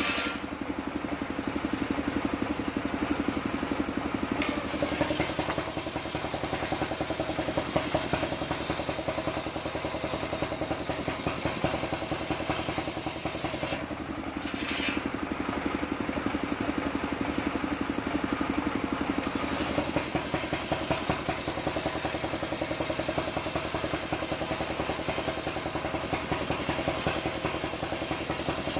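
Engine-driven circular sawmill ripping a waru log lengthwise: the engine runs steadily under load while the big blade cuts through the wood, the cutting noise turning brighter and hissier a few times.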